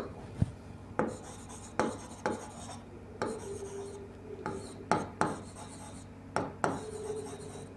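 Marker pen writing on a whiteboard: about ten short scratchy strokes and taps at uneven intervals as words are written out.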